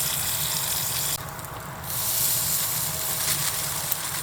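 Squid sizzling over the heat in a pan or on a grill: a steady frying hiss. It dips for under a second about a second in, then carries on.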